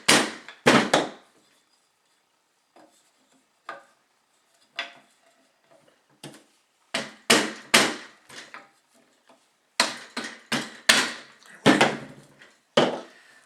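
Sharp knocks and taps as parts of a Senco pneumatic stapler are worked back together with tools during reassembly. The knocks come in uneven groups, sparse in the middle and thickest in the last few seconds.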